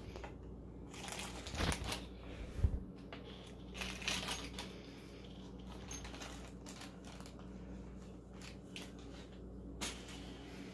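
Metal drawer slides being handled and set down on a particleboard panel: scattered clinks and knocks, a dull thump about two and a half seconds in, a short clatter around four seconds, and a sharp click near the end.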